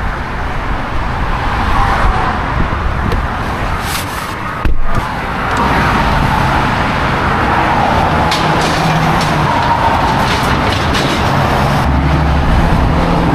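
Steady vehicle engine and busy road-traffic noise, with a low hum and a faint whine in the second half. There is a brief dropout and a short loud bump just under five seconds in.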